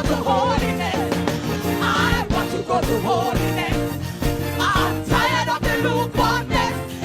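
Gospel music with singing over a band playing a steady beat.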